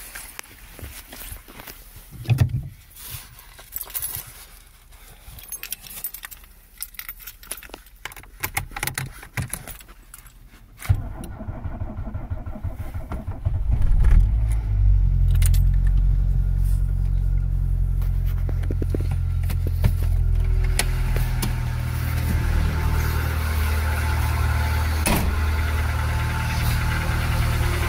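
Key and handling clicks inside the car, then about 11 seconds in a 1991 Volkswagen Golf 2's 1.6-litre engine is started from cold at −12 °C. It catches, peaks about 14 seconds in, and settles into a steady cold idle.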